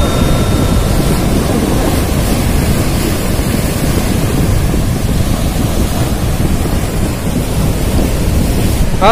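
Surf breaking on breakwater rocks, with wind buffeting the microphone into a steady, loud rumble. The ring of a bell chime fades out in the first second.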